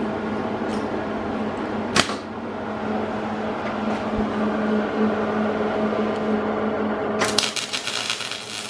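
Stick welder humming at idle, with a sharp click about two seconds in; about seven seconds in the arc is struck on the go-kart's steel axle bearing plate and the sound turns into the steady crackle of arc welding.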